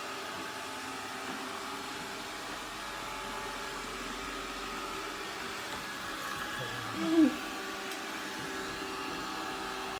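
Shark ION R75 robot vacuum running, a steady motor hum with a whine. About seven seconds in comes a brief cry that rises and falls in pitch, louder than the vacuum.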